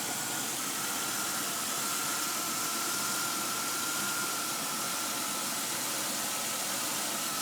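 2002 Chevy Impala engine idling steadily with a steady high whine over it. The car will not move in any gear, which the owner puts down to a failed automatic transmission.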